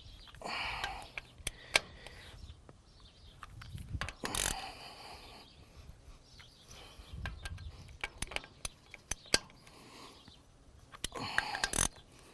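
Hand tools working bolts on a tractor's hydraulic filter housing: scattered metal clicks and ratcheting, with three short bursts of rattling noise, about half a second in, about four seconds in and near the end.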